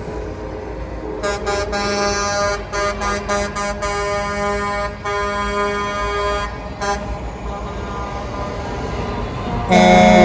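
Semi-truck air horns sounding in a series of short blasts over the low rumble of passing tractor-trailers. A louder, longer horn blast starts near the end, the one called a "sad horn".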